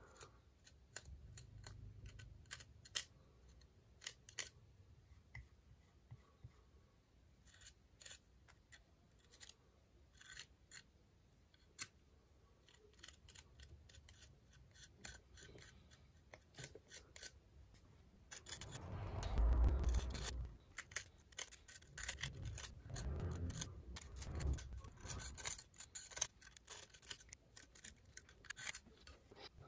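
Thin spatula scraping and clicking against the broken edge of a glazed ceramic bowl shard as urushi lacquer paste is spread along it: scattered small sharp clicks, with a louder stretch of rubbing and handling noise about two-thirds of the way through.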